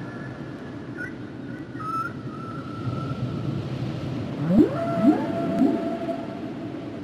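Whale song over a steady low rumble. Long whistle-like tones come first, then from about four and a half seconds in, three calls sweep up in pitch and level off into held tones.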